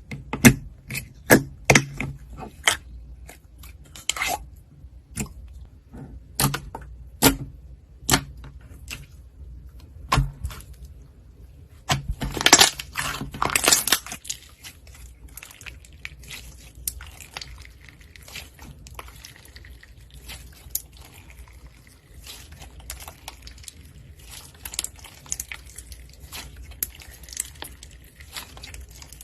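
Slime being squeezed and pressed by hand, giving irregular sharp pops and clicks. About twelve seconds in comes a denser two-second stretch of crackling, then fainter, softer crackling.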